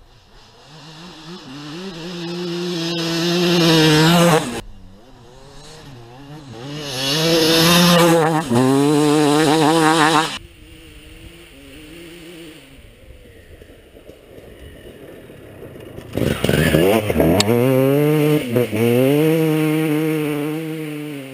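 2006 Kawasaki KX250's single-cylinder two-stroke engine revving hard through the gears as the dirt bike is ridden around the track, the pitch climbing and dropping with each gear change. It swells loud on close passes, cuts off sharply twice, drops to a distant drone in the middle, then comes close and loud again before fading near the end.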